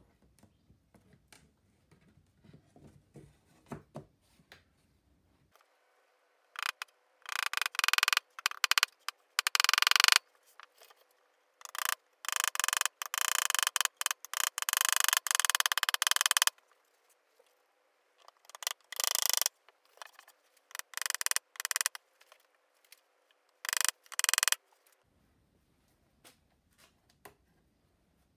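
Quick, rough scraping strokes of a hand tool working over the wooden chair frame, in bursts of several strokes with short pauses. Faint handling sounds come before the strokes begin about six seconds in.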